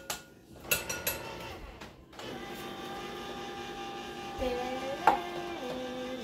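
Metal spoons scraping and clinking inside tin cans while condensed soup is scooped out, with one sharp clink about five seconds in. About two seconds in, a steady hum with several held tones starts and shifts in pitch a couple of times.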